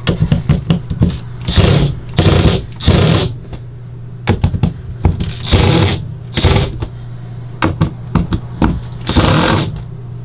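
Cordless impact driver run in repeated short bursts, driving screws through a toilet flange into the RV's floor, snugging them down a little at a time.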